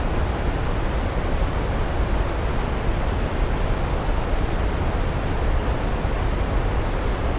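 Waterfall rushing in a steady, unbroken roar, heaviest in the low end.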